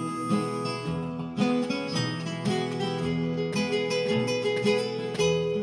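Acoustic guitar backing track playing an instrumental break: a plucked melody over steady low notes.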